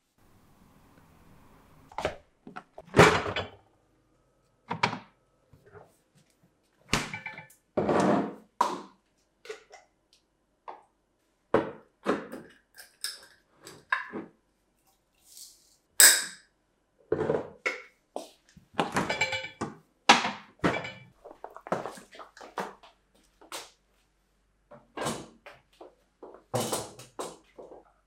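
Kitchen handling sounds: a string of separate thunks and clinks as glass storage jars and a ceramic bowl are picked up and set down on a counter, with short gaps between them.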